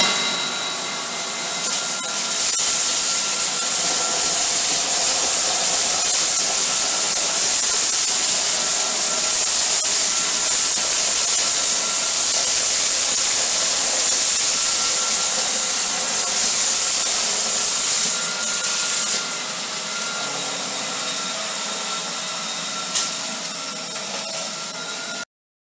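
Dyson Cinetic Big Ball Animal Pro canister vacuum running, a steady high whine with a rushing hiss of suction as its floor head passes over a hard tile floor picking up debris. The hiss drops away about three quarters of the way through, there is a single click shortly before the end, and the sound then cuts off.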